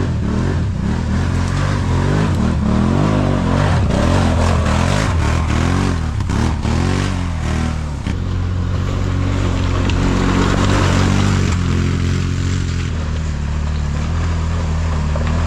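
ATV engine revving up and down several times in quick succession, then running at a steady pitch from about halfway through.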